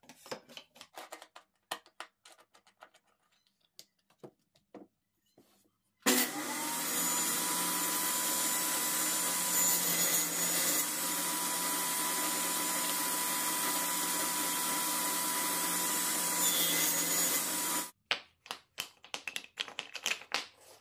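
Table saw starting up about six seconds in, its pitch rising briefly, then running steadily for about twelve seconds before cutting off abruptly. Before and after, light wooden knocks and clicks as wood and hold-down clamps are handled on a crosscut sled.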